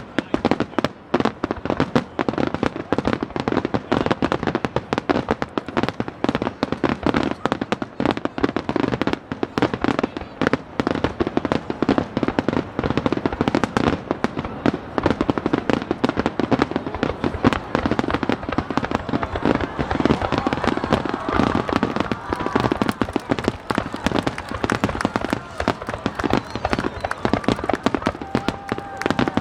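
Aerial fireworks bursting in rapid, unbroken succession: a dense barrage of bangs and crackles, many shells a second.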